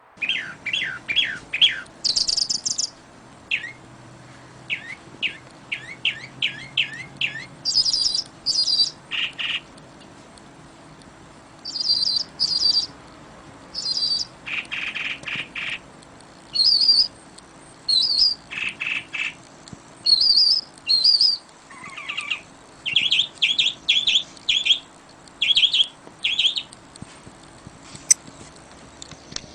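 Several songbirds chirping and calling: quick runs of short chirps and paired high whistles, one group after another, over a faint steady hiss of wind.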